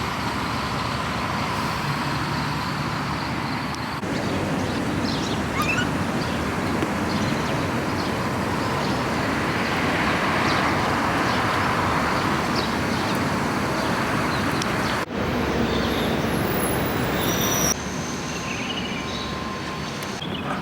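Steady outdoor road-traffic rush, changing abruptly a few times, with a few faint short bird chirps near the end.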